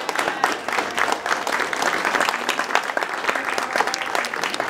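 Wedding guests applauding the newly pronounced couple, many hands clapping in a dense, steady stretch.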